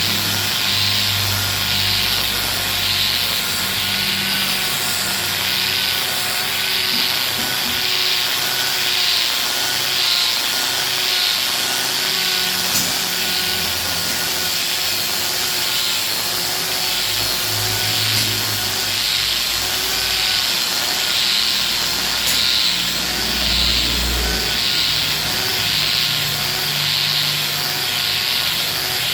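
Handheld angle grinder with a sanding disc running steadily and sanding a solid-wood chair seat. The rasp swells and fades about once a second as the disc is swept back and forth over the wood.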